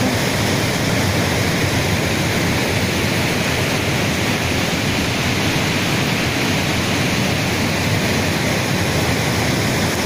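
Steady rushing of a swollen river in flood, muddy water pouring from open dam spillway gates and surging past rocks.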